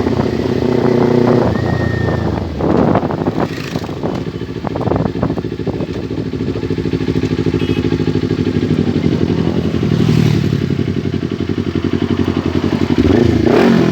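Kawasaki Ninja 400's parallel-twin engine, fitted with a full-system racing exhaust, running while the bike is ridden. The revs rise and fall early on, hold fairly steady through the middle, then climb sharply near the end and drop away.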